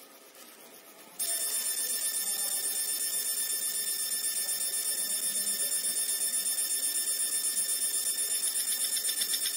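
50 W fiber laser marking machine starting a cutting pass on brass sheet about a second in: a sudden high-pitched electronic whine of several steady tones that flutters rapidly as the beam is scanned over and over the cut path.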